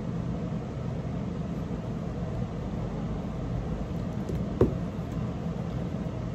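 Steady low hum and hiss of room noise, no music to be heard, with one sharp knock a little past the middle as the small speaker is handled close to the microphone.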